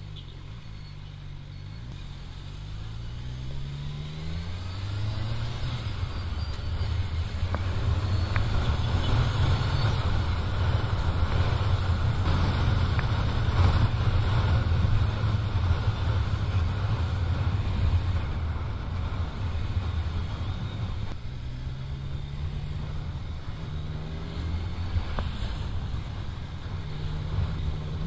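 Motorcycle engine pulling away and accelerating through the gears, its pitch climbing in repeated steps. It holds a loud, steady drone with rushing noise while cruising, then climbs through the gears again in the last third.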